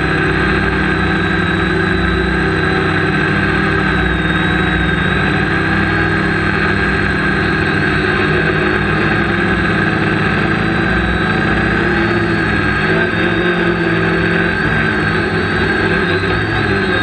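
Quadcopter's electric motors and propellers buzzing steadily, picked up by the camera on the craft. It is a dense whine of several tones, and the pitch wavers slightly in the second half as the craft descends.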